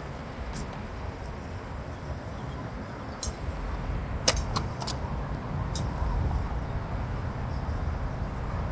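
Steady low rumble, with a handful of sharp clicks near the middle, the loudest about four seconds in.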